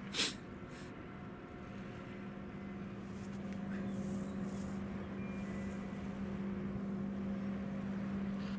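Large container ship's machinery: a steady low hum that grows slightly louder from about three seconds in. There is a short click at the very start.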